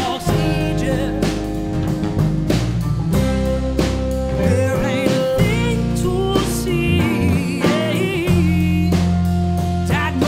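A band playing a rock song live: electric and acoustic guitars, bass guitar and drum kit.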